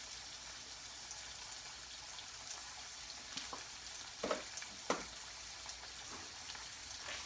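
Pork chops and vegetables frying in two skillets: a steady sizzling hiss, broken by a few sharp clicks between about three and five seconds in.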